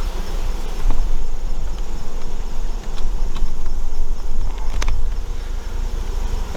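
Honey bees buzzing steadily around an open hive, over a low rumble, with a couple of sharp clicks about one second in and near five seconds.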